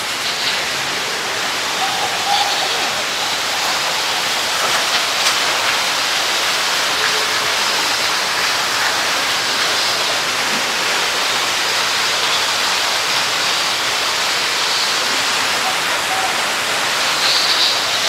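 Man-made waterfall: a steady, even rush of falling water.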